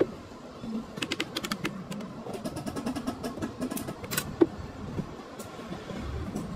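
Sharp clicks and clinks of lead-acid battery plates and cell parts being handled and pulled apart, in quick runs, with one louder knock about four and a half seconds in. Underneath runs a steady vehicle engine hum.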